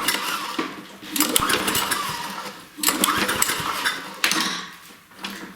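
6.5 hp Tecumseh mower engine being cranked by its recoil pull-starter, several pulls about a second long each, turning over without starting during a spark check.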